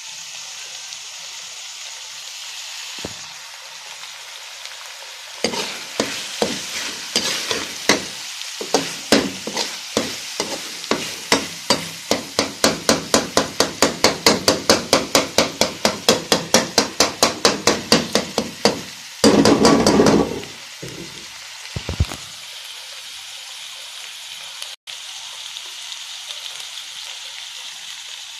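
Minced mutton (keema) sizzling in oil in a metal pot while a perforated steel spoon scrapes and knocks against the pot in quick stirring strokes. The strokes pick up to about three a second, then end in one longer scrape, and the steady sizzle carries on alone.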